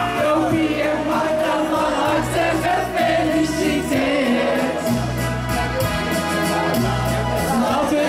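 A group of men and women singing a song together, with an instrumental accompaniment and a bass line that moves in steady steps.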